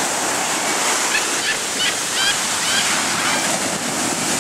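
Shorebreak waves breaking and surf washing up the beach, a steady, loud rush of water.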